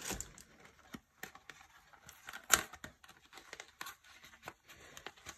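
Paper packaging being handled: scattered soft rustles and small clicks, with one sharper snap about two and a half seconds in.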